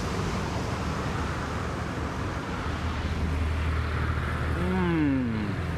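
Steady outdoor traffic noise with a low engine hum that grows stronger about halfway through, and a short falling tone near the end.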